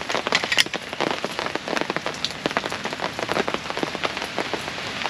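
Hard, steady rain falling on a fabric canopy tent overhead, with many separate drops hitting close by.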